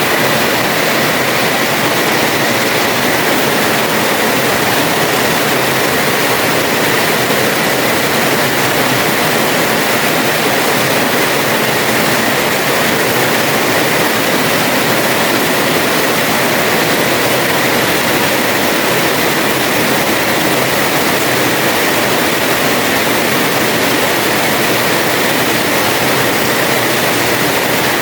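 Heavy rain pouring steadily onto a house terrace, a dense even hiss with no letup.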